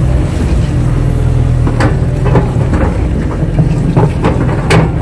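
Kato excavator's diesel engine running steadily, with several short knocks over it.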